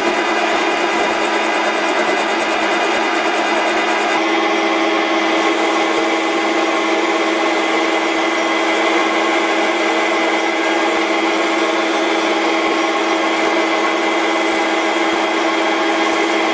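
Metal lathe running and taking a turning cut on a shaft cut from an old tractor bolt, the tool bit shaving off chips: a steady mechanical whine of the lathe's drive with the hiss of cutting. The tone shifts slightly about four seconds in.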